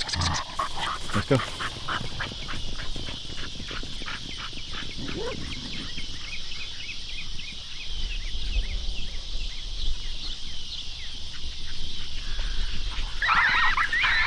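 A dog panting quickly and rhythmically, about three to four breaths a second, fading out about halfway through. Near the end, high wavering animal calls begin.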